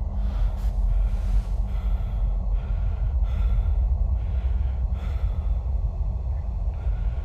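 A man breathing heavily in short gasping breaths, about one a second, over a steady deep rumbling drone that is the loudest sound.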